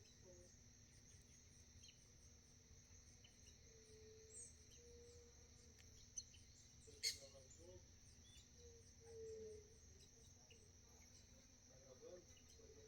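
Faint, steady, high-pitched insect chirring, with one sharp click about seven seconds in.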